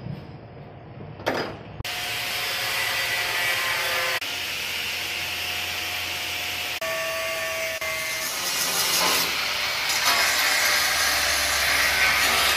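An electric power tool working metal: a loud rough grinding noise with a faint whine, starting about two seconds in and breaking off and resuming abruptly several times.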